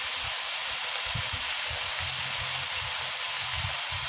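Beef cubes sizzling steadily in a little oil and their own fat in an open frying pan as they sauté.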